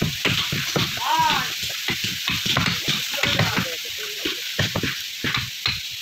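Wooden planks being pressed and lashed onto a plank boat hull: dense irregular knocking, scraping and crackling of timber and rope, with one short rising-and-falling squeak about a second in.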